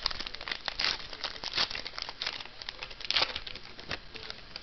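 Foil wrapper of a 2008 Score Select football card pack being torn open and crumpled in the hand, a dense crinkling with sharp crackles. It is loudest right at the start and again about three seconds in.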